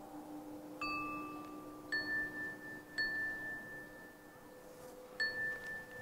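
Celadon porcelain instruments struck in a slow melody, ringing with clear bell-like tones: four strikes, the first a lower note and the next three on the same higher note, each ringing on and fading slowly.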